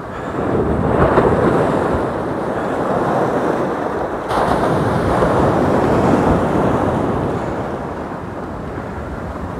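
Sea waves washing onto the beach with wind buffeting the microphone, the rush swelling about half a second in and again sharply about four seconds in.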